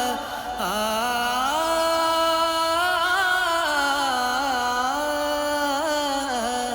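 Film background music: one melodic line of long held notes that slide and waver between pitches.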